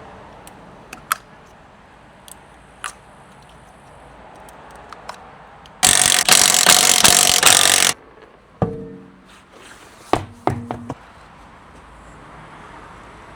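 Workshop tool work: a few light metallic clicks, then a power tool runs loudly with a fast rattle for about two seconds, followed by several ringing metal clinks and knocks.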